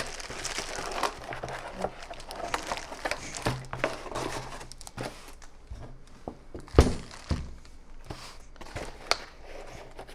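Plastic packaging bags crinkling and rustling as bagged metal microphone-arm parts are pulled out of a cardboard box, with scattered small clicks. A single solid thump about two thirds of the way through as a bagged part is set down on the table.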